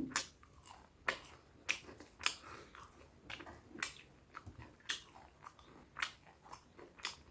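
Close-miked eating sounds: a person chewing buffalo meat and rice, with sharp wet mouth clicks and smacks at an uneven pace, about one or two a second.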